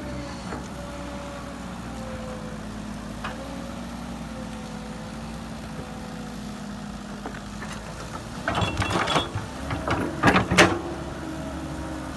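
Heavy construction machine's diesel engine running steadily, its pitch wavering slightly. A burst of metallic clanking and knocking comes about eight seconds in and lasts a few seconds.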